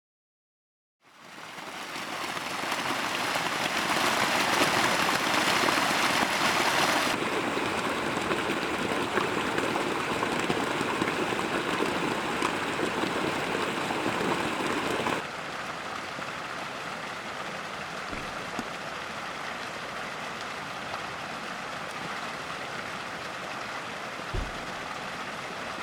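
Steady hiss of water with no speech, starting after a short silent gap about a second in. It drops in level twice, about 7 and 15 seconds in, with a faint low thump near the end.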